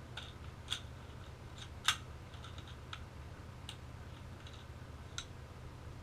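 A few separate sharp clicks and taps, the loudest just under two seconds in, over a steady low hum.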